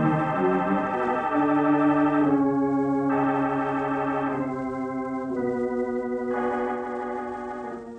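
Organ music bridge: a series of held chords changing about once a second, dying away near the end, marking the change of scene in a radio drama.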